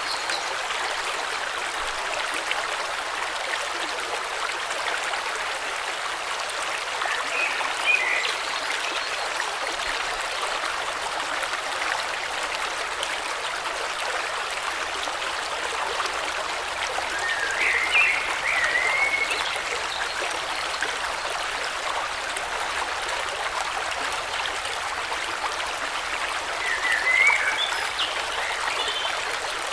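Steady rushing of a flowing river, with a small bird chirping three times, a short run of chirps about every ten seconds.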